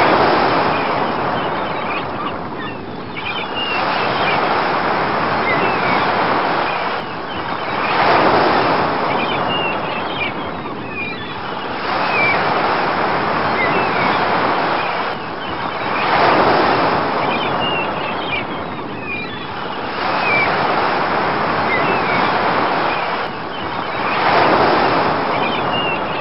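Ocean surf washing in and out, swelling and fading about every four seconds, with gulls calling over it.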